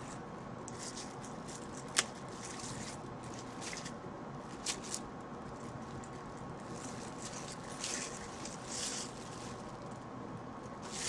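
Clear plastic bag crinkling and rustling in short bursts as it is handled and pulled off a boxed soldering station. A sharp click about two seconds in, and two quick clicks about five seconds in.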